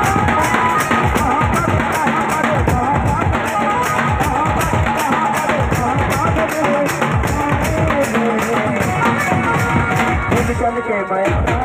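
Live band music for dancing: a drum beaten with sticks and clashing hand cymbals keep a fast, steady beat, about four strokes a second, under a wavering melody line. The music thins out briefly near the end.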